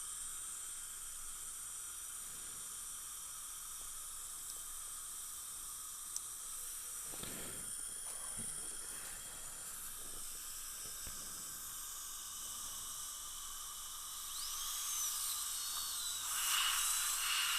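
Steady hiss of dental suction and air in the treatment room. Near the end a high, thin whine rises and then falls, and the hiss grows louder.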